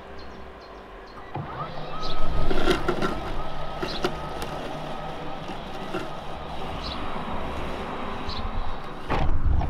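Worx Landroid robot lawn mower's motors starting up about a second in and running with a steady whine as it drives off across the grass, with a few light clicks. A low rumble near the end.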